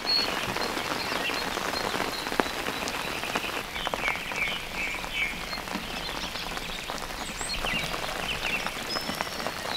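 Steady, dense pattering and crackling of water, full of tiny drips and splashes, with birds chirping now and then over it.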